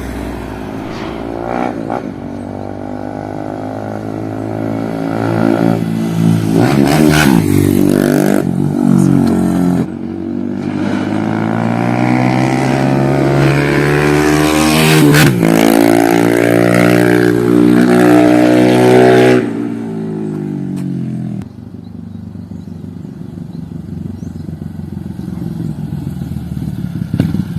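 Honda CG 150 Fan single-cylinder motorcycle with a tuned engine and a Gemoto Racing aftermarket exhaust, accelerating hard through the gears: the exhaust note climbs in pitch in several runs, broken by gear changes. Near the end the throttle closes and the engine drops to a quieter, lower note.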